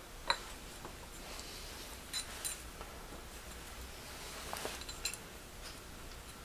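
A handful of light metallic clicks and clinks, a second or two apart, as small metal parts and the chuck are handled by hand on a drill-press setup with an aluminium hub, over a faint steady shop hum.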